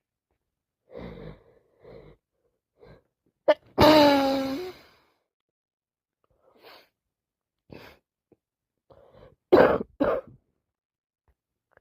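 A person with a cold sneezing: a few short sniffs and breaths, then a loud sneeze about four seconds in, a sharp burst followed by a voiced 'choo' that falls in pitch. Near the end come two more short, sharp bursts in quick succession.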